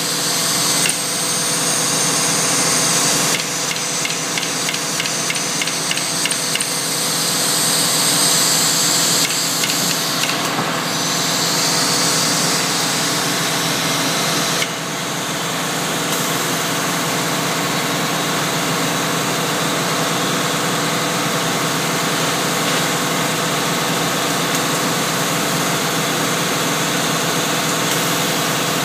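Vacuum pump of a stone vacuum lifter running with a steady hum. Hissing comes in at the start and again about ten seconds in, and a run of quick clicks sounds around four to seven seconds in.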